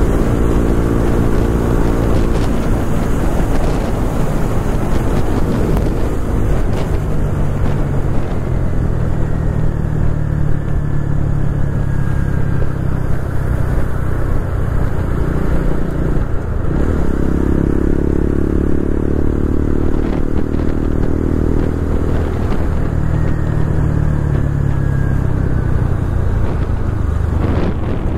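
Motor vehicle engine running over a steady hiss of road and wind noise. Its note changes about halfway through.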